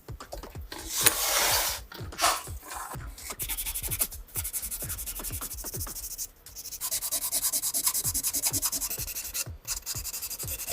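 Rapid back-and-forth abrasive rubbing on metal as rust is worked off old pistol parts, in two long spells of quick, even strokes after a couple of short louder scrapes, over background music with a steady beat.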